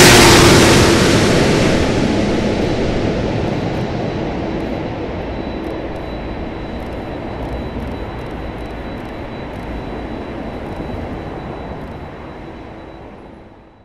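Airbus A330-200's two Rolls-Royce Trent 772B turbofans just after passing low overhead on landing approach. The jet noise is loudest at first, its tone dropping in pitch as the airliner goes by, then fades steadily as it flies away, with a thin high whine under the rumble.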